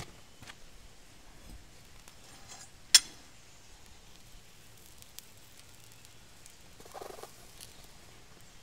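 Molten bronze being poured from a crucible into a sand mold: a faint crackling hiss, with one sharp clink about three seconds in and a short soft scrape near the end.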